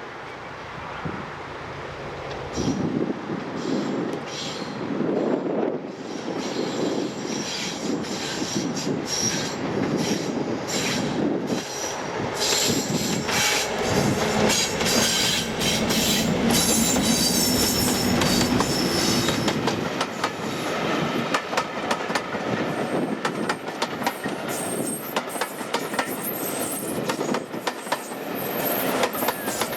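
Two heritage diesel locomotives, a Class 73 and a Class 37, double-heading a passenger train past at close range: engine noise builds up, then the wheels clatter steadily over the rail joints, with wheel squeal in the later part.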